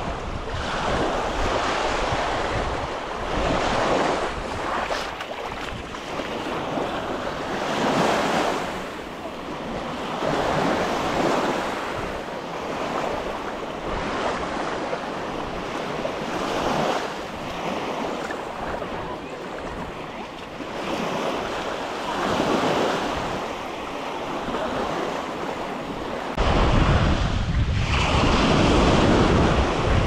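Ocean surf breaking and washing up a flat sandy beach, the noise swelling and fading every few seconds. Wind buffets the microphone, with a heavy low rumble setting in near the end.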